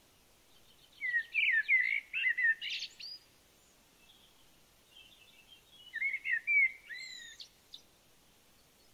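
A songbird singing two short phrases of quick, warbling up-and-down notes, one about a second in and another about six seconds in, with fainter chirps in between.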